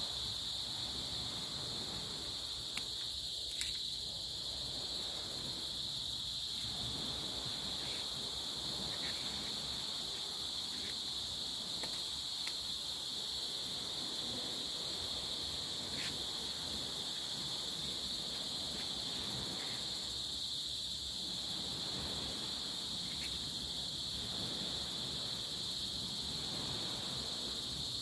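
Steady, high-pitched chorus of insects trilling without a break, with a couple of faint clicks about four seconds in.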